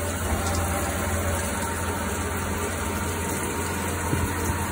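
CNC lathe drilling: a large insert drill bores into the centre of a spinning metal disc under a jet of flood coolant. It makes a steady machine hum under a continuous hiss of spraying coolant and cutting noise.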